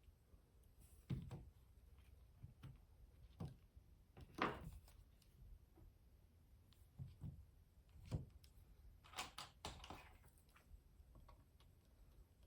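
Faint, scattered taps, clicks and knocks of tools and a circuit board being handled on a table while solder joints are reflowed, a few of them louder.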